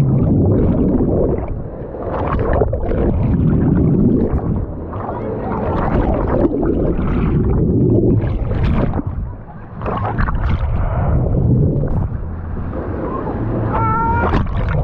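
Wave pool's big wave cycle: waves surging and washing through the water, loudening and easing every few seconds, with a crowd of swimmers' voices mixed in. A brief high cry near the end.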